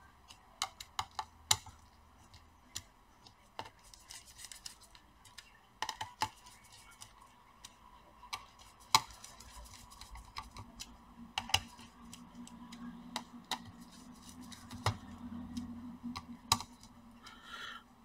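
Scattered light clicks and taps of a small hand screwdriver and screws against a laptop's copper heatsink as its screws are started loosely, not yet tightened. A faint low hum comes in about halfway through.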